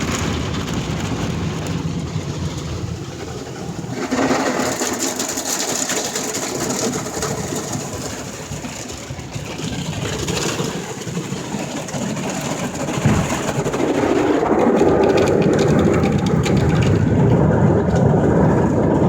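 Ryko SoftGloss XS automatic car wash at work: spinning wash brushes and water scrubbing against the car, heard from inside the cabin as a steady rushing, swishing noise. It grows louder about four seconds in and again at about 13 seconds, staying loud after that.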